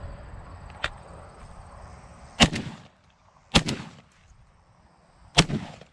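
Three shotgun shots: the second comes about a second after the first, and the third nearly two seconds after that. A faint click comes about a second in, before the first shot.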